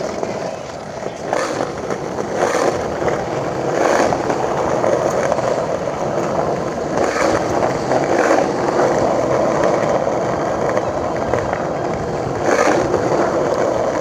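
Skateboard wheels rolling over paving: a steady rolling rumble, broken by a handful of short sharp clacks spaced a second or more apart.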